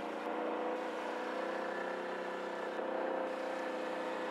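ATV engine running steadily, holding an even pitch while riding along.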